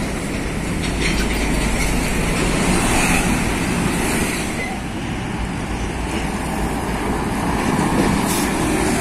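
Heavy diesel semi-trailer trucks passing close by: a steady low engine rumble mixed with tyre and road noise.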